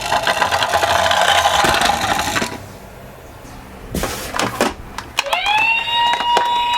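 Toy minicars rolling down a slope with a dense rattle, then a couple of sharp clicks. About five seconds in, a steady high tone starts with a short rise and holds.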